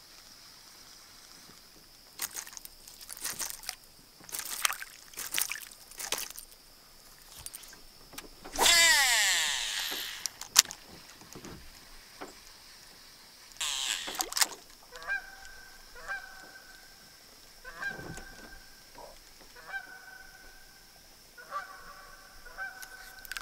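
Fishing cast and retrieve with a spinning rod: reel and line noise, loudest as a two-second whirring sweep falling in pitch about nine seconds in, with a shorter one near fourteen seconds. Through the second half, distant goose-like honking calls repeat about once a second.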